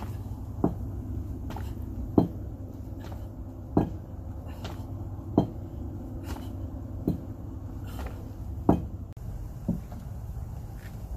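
Feet landing from sumo squat jumps while holding a kettlebell, a sharp thud about every one and a half seconds, seven in all, the last one weaker, over a steady low rumble.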